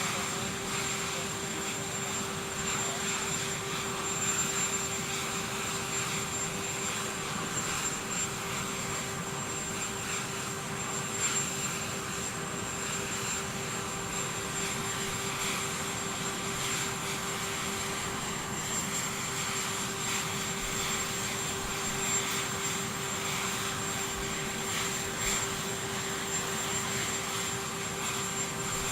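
Aircraft engines running steadily: an even hum with a constant high whine, unchanging throughout.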